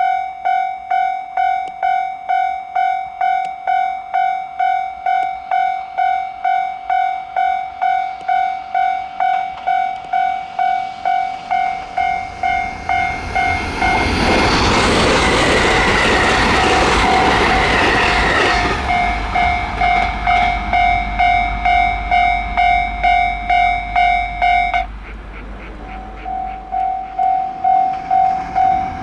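Electronic warning bell of a Japanese railway level crossing, ringing just under twice a second. About halfway through, a train passes over the crossing and its running noise drowns the bell for several seconds. Near the end the bell cuts out for about a second, then rings again as noise builds once more.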